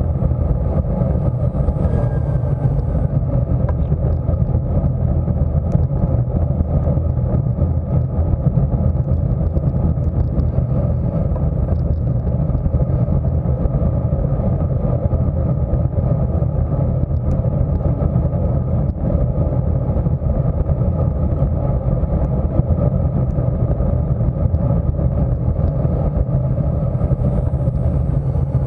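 Steady wind rush over the microphone of a bike-mounted camera at about 24 mph, with tyre noise from the road, heavy in the low end.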